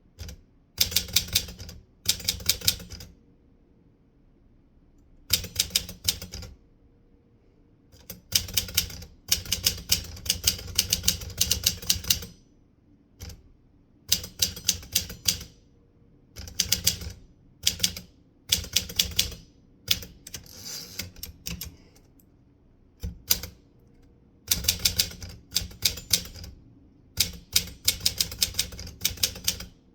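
Typewriter being typed on: rapid runs of sharp key strikes in bursts of one to several seconds, broken by short pauses between words and phrases.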